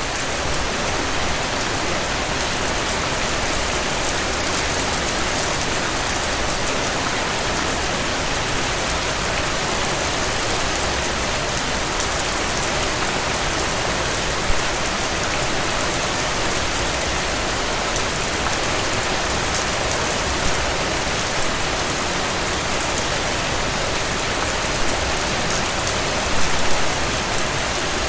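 A gentle stream of water flowing and splashing: a steady, even rushing hiss with a few brief, slightly louder splashes.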